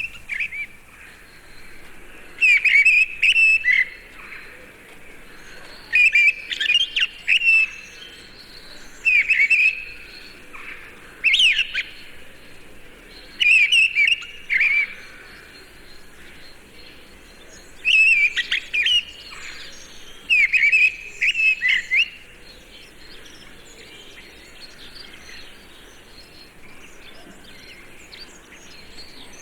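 Songbird song: short, repeated phrases of chirps and trills every few seconds over a faint steady background, stopping a little over two-thirds of the way through.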